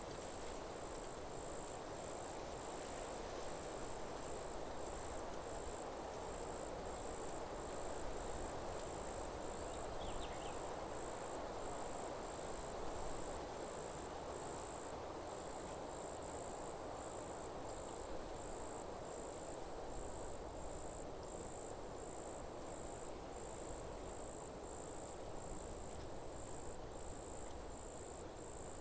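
Insects chirping: a high trill pulsing evenly, a little over once a second, over a steady low rushing hiss of forest ambience. A brief faint chirp comes about ten seconds in.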